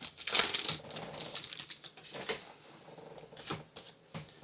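Pokémon booster pack wrapper and trading cards being handled: a burst of rustling about half a second in, then softer rustles and a couple of light clicks as the cards are moved.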